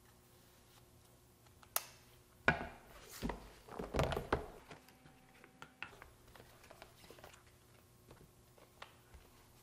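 A sheathed chef's knife and its cardboard gift box being handled on a wooden cutting board. A sharp click comes as the sheath goes on, then a louder thunk as the knife is set down, followed by a couple of seconds of clatter and rustling from the box and a few light ticks.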